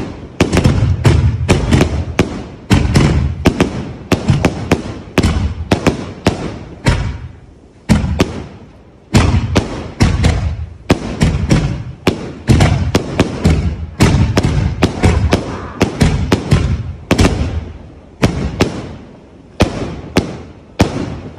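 Aerial fireworks firing in quick succession: a steady string of launch thumps and sharp bangs from bursting shells, about one to two a second, with a few brief lulls.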